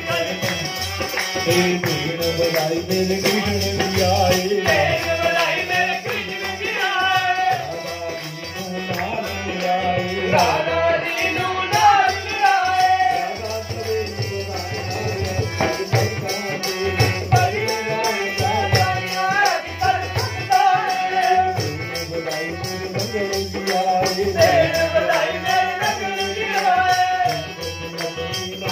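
Devotional song with harmonium and dholak drum, with a sung melody over a steady rhythm and jingling hand percussion such as tambourine rings shaken along.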